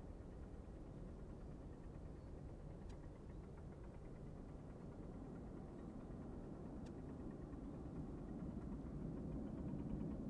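Distant twin-engine jet airliner on final approach, its engines a low, steady rumble that grows gradually louder over the last couple of seconds as it nears. A few faint high clicks come about four seconds apart.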